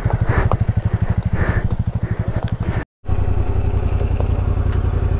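Motorcycle engine running steadily under way, its firing pulses coming fast and even. The sound cuts out for an instant about three seconds in, then the engine carries on the same.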